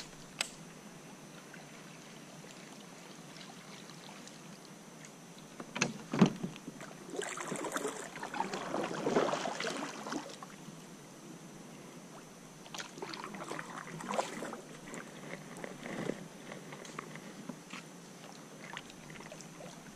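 Kayak paddle strokes splashing in the water in two stretches, a longer, louder one about a third of the way through and a weaker one past the middle, with a couple of sharp knocks shortly before the first.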